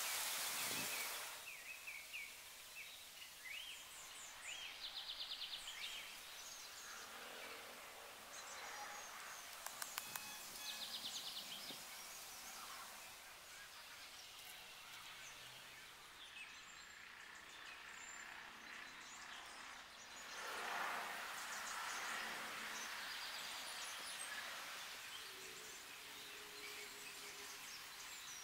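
Quiet forest ambience with birds chirping and trilling now and then, a few sharp clicks about ten seconds in, and a swell of rustling around twenty seconds in.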